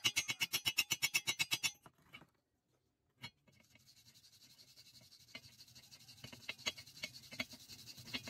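A slag hammer rapidly tapping slag off a fresh stick-weld bead on steel rebar, about eight blows a second, stopping just under two seconds in. After a short pause and a single knock, a steel wire brush scrubs the cleaned weld with a steady scratching that grows louder.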